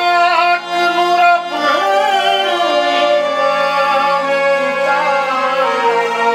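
A man singing a Punjabi masihi geet (Christian devotional song), his voice wavering and ornamented over a steady held instrumental drone.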